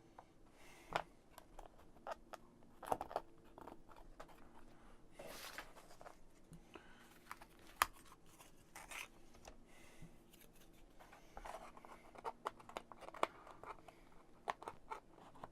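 Light clicks, taps and scrapes of laser-cut MDF kit pieces being handled and slotted together in a dry fit, with a longer scrape about five seconds in.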